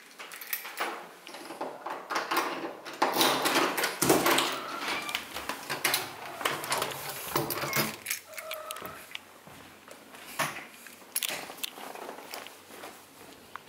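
Keys jangling and clicking in a door's deadbolt and knob lock, then the wooden door opening, a string of sharp clicks and rattles. A little past halfway a cat gives a short trill.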